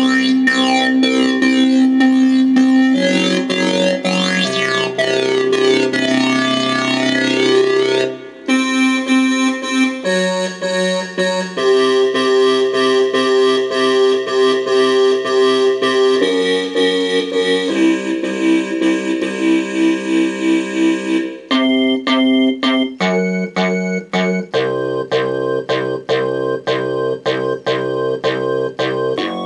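Korg Kronos synthesizer playing synth bass patches: held bass notes and chords that change every few seconds, the tone sweeping through the first several seconds, then short repeated staccato notes in the last third.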